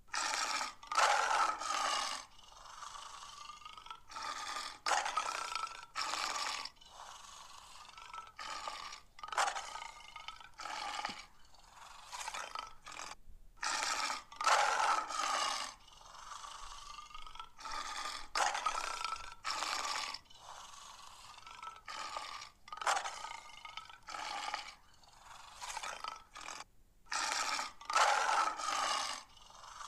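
Big-cat growls and snarls laid on as a sound-effect track, not voiced by the lion in view: clusters of rough, noisy growl bursts with a wavering tone, recurring every four to five seconds.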